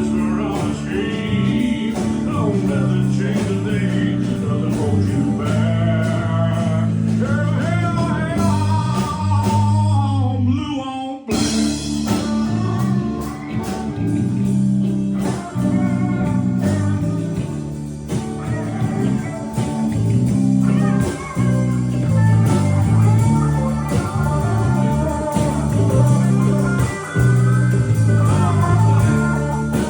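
A band rehearsing a blues-rock song, with guitar, bass and singing. The whole band stops for an instant about eleven seconds in, then comes straight back in.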